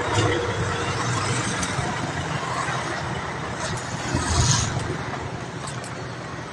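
Road and engine noise from a moving vehicle, with a brief louder rush about four and a half seconds in.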